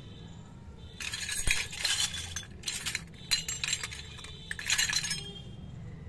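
Handling of small plastic toy kitchen pieces: crisp rustling and clinking of plastic in four bursts, starting about a second in and stopping about a second before the end.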